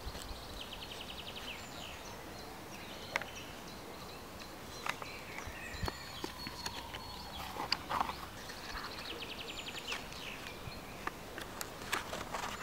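Outdoor woodland ambience with birds calling in short, quick trills and chirps. Scattered soft clicks and crinkles of paper being handled, a few of them near the end as a folded photo is opened.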